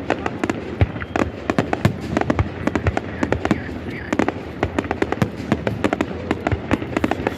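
Fireworks display: a rapid, irregular run of bangs and crackles from aerial shells bursting, many a second.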